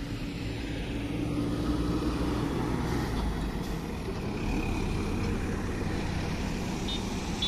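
Road traffic passing close by: a passenger bus and then a heavy multi-axle tipper truck drive past on the asphalt, a steady rumble of engines and tyres.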